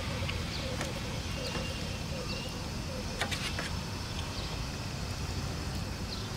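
Spoon and fork clicking lightly against a metal tray of rice noodles a few times while stirring and lifting them, over a steady low rumble.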